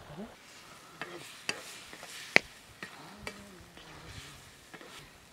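A spatula stirring and scraping food in a karahi over a wood fire, with sharp clacks of the spatula against the pan, the loudest about two and a half seconds in, over faint sizzling.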